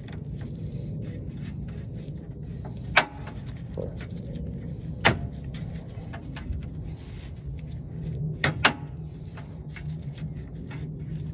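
Pliers working a spring hose clamp on a radiator cooler-line hose: a few sharp metal clicks, one about 3 s in, one about 5 s in and a quick pair a little past the middle, over a steady low background rumble.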